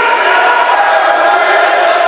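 Crowd of spectators chanting and shouting together: a steady, dense mass of many voices with a few held notes.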